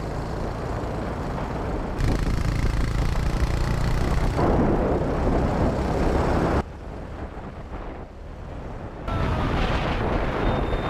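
Wind buffeting the microphone over the running of a small motorcycle riding at speed. The sound jumps in level about two seconds in, drops quieter at around six and a half seconds, and comes back up near nine seconds.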